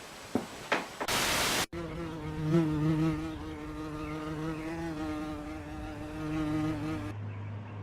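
A steady, pitched buzz that holds for about five seconds and stops suddenly, after a short burst of hiss and two light clicks.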